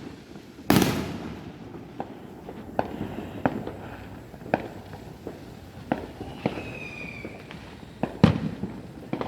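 Fireworks going off: a series of scattered bangs and pops, the loudest about a second in and again near the end, with a short falling whistle in between.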